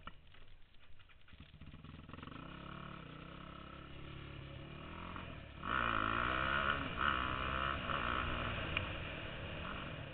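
Yamaha YFZ450 quad's single-cylinder four-stroke engine under way, its pitch climbing from about two seconds in. About halfway through it suddenly gets much louder, revving up and down hard for a couple of seconds before easing back.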